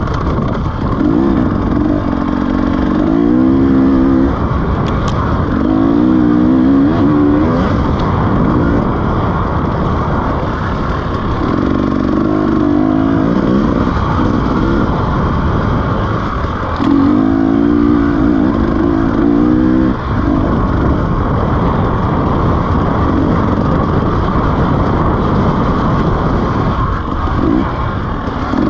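KTM 300 two-stroke enduro motorcycle engine revving up and down with the throttle while riding, its pitch climbing and dropping in several stretches of a couple of seconds, over constant wind and trail noise.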